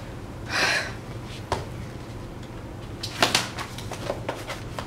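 Rustling and scuffing of a spiral notebook and loose paper being gathered up off a hard floor, with a few small clicks and taps; the sharpest cluster comes about three seconds in.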